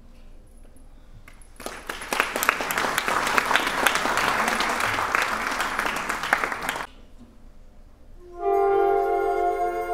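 Audience applauding for about five seconds, cut off abruptly. About eight seconds in, a concert band comes in with held brass chords.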